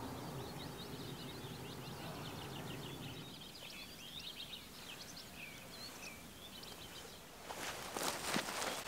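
Small birds singing in quick, high twittering trills over quiet outdoor ambience. Near the end come footsteps and rustling on grass.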